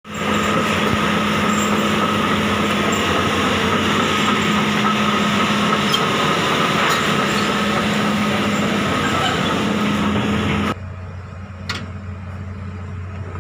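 Loud, steady mechanical drone with a constant low hum and a higher whine, like heavy machinery running. It cuts off abruptly near the end, leaving a quieter low hum and a couple of light metallic clicks.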